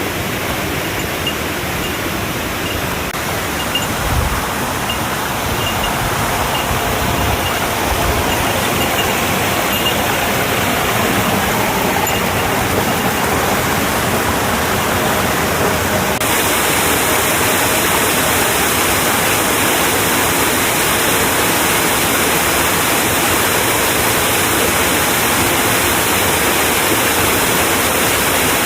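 Waterfall pouring steadily, a dense even rush of water that grows brighter and a little louder about halfway through.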